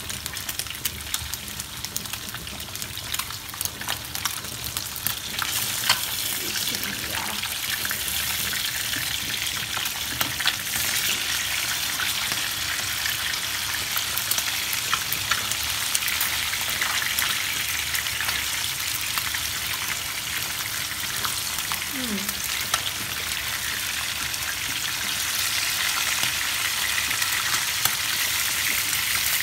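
Pomfret steaks frying in plenty of hot oil in a frying pan: a steady sizzle full of small crackling pops, getting a little louder about five seconds in.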